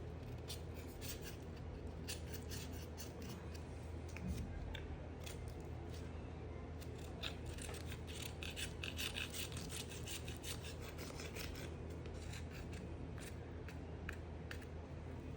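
A knife cutting dry soap: a run of crisp crackling crunches and scrapes, coming thickest and with a rasping hiss about halfway through. A steady low hum sits underneath.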